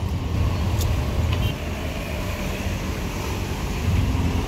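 Steady low rumble of vehicle engines and road traffic, with a light click about a second in and another shortly after.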